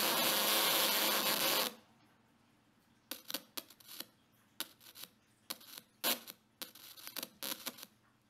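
Small speaker in a Victorian oscillator: two soda can tabs wired to a 9-volt battery touch over its cone, and the speaker's own vibration makes and breaks the contact. It gives a harsh, loud buzz for about the first two seconds, then stops. From about three seconds in it gives irregular crackles and pops as the tabs chatter on and off.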